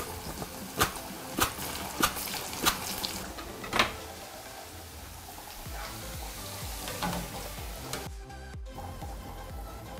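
Cassava slices cut on a handheld mandoline slicer straight into hot oil: about six sharp slicing strokes, roughly one every 0.6 s, in the first four seconds, over the steady sizzle of frying oil, which carries on alone after that.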